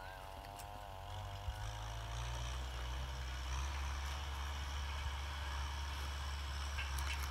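Kubota M6040SU tractor's diesel engine running under load as it pulls a plough, a steady low drone that grows a little louder about two seconds in.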